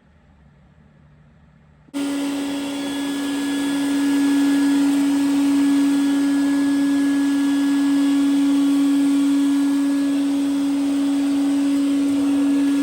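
Vacuum cleaner switched on about two seconds in, then running steadily with a strong even hum.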